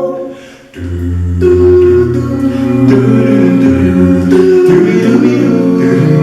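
Male a cappella vocal group singing a wordless harmony interlude over a deep sung bass line; the last chord dies away in the first second before the new passage comes in.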